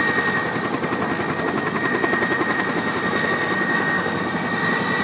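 Heavy-lift helicopter running steadily: a fast, even rotor chop with a constant high whine on top.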